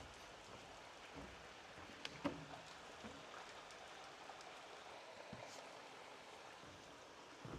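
A hiker's footsteps on a dirt trail, a few soft crunches and taps over a faint steady hiss, with the sharpest step about two seconds in.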